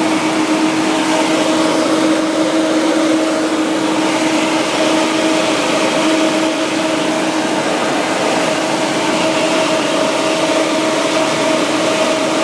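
Citroën C4 heater/air-conditioning blower fan running at full speed: a steady rush of air with a constant hum. The fan goes to maximum whenever the climate control or ventilation is turned on, a fault in the blower's speed control.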